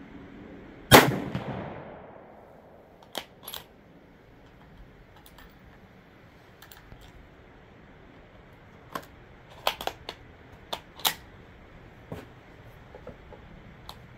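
A single shot from a Savage Axis XP bolt-action rifle in .223 Remington about a second in, its report trailing off over about a second. Scattered sharp clicks follow as the rifle is handled at the bench.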